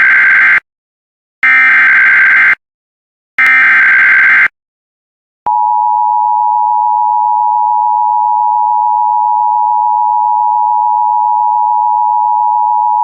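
Emergency Alert System SAME header: three rapid, screechy data bursts of about a second each, the first already under way. About five and a half seconds in comes the steady two-tone EAS attention signal (853 and 960 Hz sounding together), which announces a severe thunderstorm warning.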